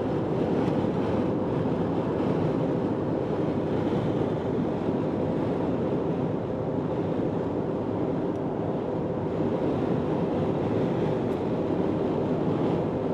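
Steady road and wind noise heard from inside a moving vehicle's cabin, with a faint even hum.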